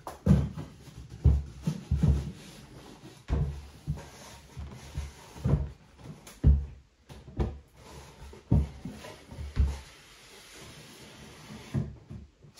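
Bathroom vanity cabinet being shoved and shuffled into place against the wall: a run of irregular heavy knocks and bumps, roughly one a second.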